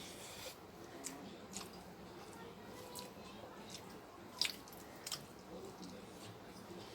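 A person eating a meal of rice and egg curry, with moist chewing and squishing sounds. Scattered small sharp clicks run through it, the sharpest about four and a half seconds in.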